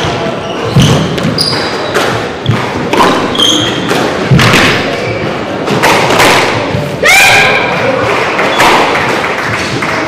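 Squash rally: the rubber ball thudding off rackets and the court walls in quick, irregular knocks, mixed with short high squeaks of court shoes on the wooden floor. The knocks stop about halfway through as the rally ends.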